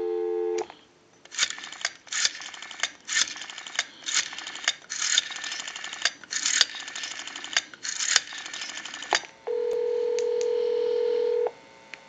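Telephone line sounds heard through an amplified handset pickup. A dial tone cuts off about half a second in. Then a Western Electric rotary dial pulses out a number, each digit coming through as a short burst of rapid clicks. Near the end there is about two seconds of steady ringback tone as the dialled line rings, showing the dial is pulsing correctly.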